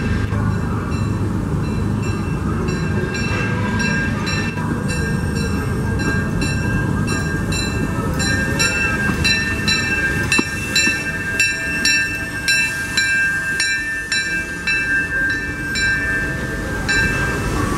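C.K. Holliday #1, a 4-4-0 narrow-gauge steam locomotive, rolling slowly into a station with its bell ringing steadily, about two strokes a second, over the rumble of the train. The ringing stops near the end.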